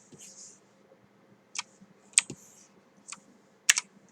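Scattered sharp clicks from a computer keyboard and mouse, about six in all, with two short soft rustles among them.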